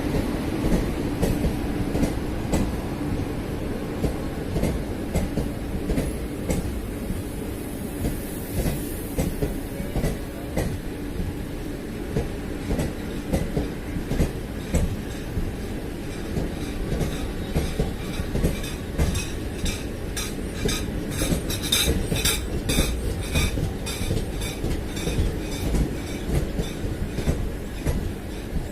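Indian express train running on the rails: a steady rumble with the repeated clack of wheels over rail joints, and a stretch of sharper metallic clatter about twenty seconds in.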